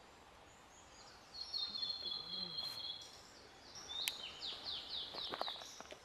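Blue-and-white flycatcher singing: a long, clear whistled note held for about a second and a half, then a quick run of about six downward-slurred whistles. There are a few sharp clicks during the second phrase.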